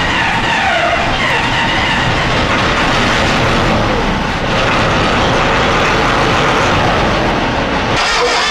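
Bizon combine harvester running, its diesel engine and machinery making a dense, steady mechanical clatter.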